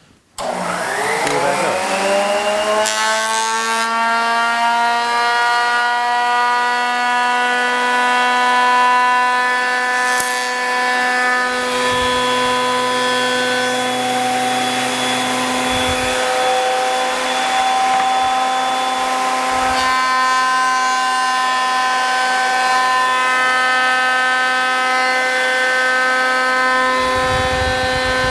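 Makita 2040 thickness planer starting up: the motor and cutterhead spin up with a rising whine over the first few seconds, then run steadily at full speed with a loud, even whine. Near the end a deeper rumble joins as a board is fed in.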